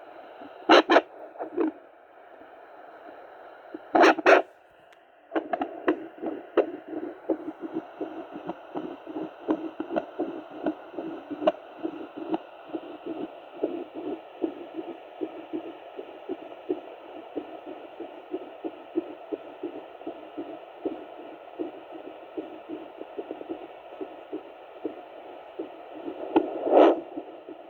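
Heartbeat picked up by a handheld Doppler monitor: rapid, evenly repeating whooshing pulses over a steady hiss. Loud bursts of noise come twice in the first few seconds and once more near the end.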